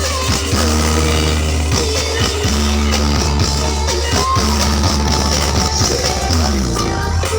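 Music played loud through the Brewog Audio sound system during a sound check, with a heavy, steady bass line under it.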